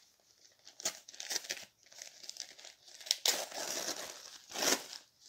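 Newspaper wrapping crinkling and tearing as hands pull it apart, in irregular crackly bursts, the densest and loudest stretch about three to five seconds in.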